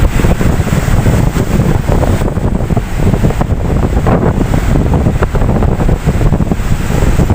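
Ocean waves surging and washing in a steady, continuous wash of surf, with wind buffeting the microphone in a heavy low rumble.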